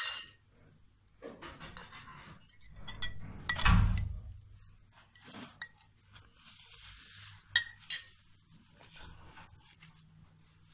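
Metal spoon clinking and scraping against a ceramic plate while stirring a white paste, with a sharp clink at the start, a louder knock about four seconds in, and a few more clinks later.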